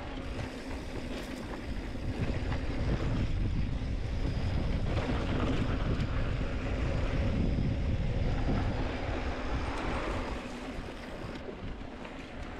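Wind rushing over the microphone of a chest-mounted camera while riding a mountain bike down a dry dirt singletrack, with the tyres rolling over dirt and gravel and the bike rattling. It is steady throughout, a little louder in the middle.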